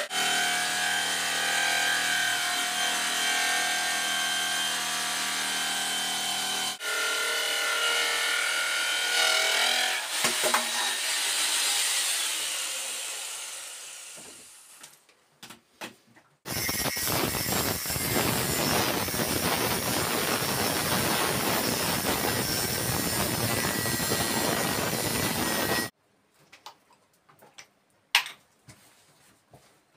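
Green Bosch jigsaw cutting a wooden board: the motor whines as the blade saws through the wood, then dies away. After a short pause a second cut of about nine seconds starts and stops abruptly. A few light knocks follow near the end.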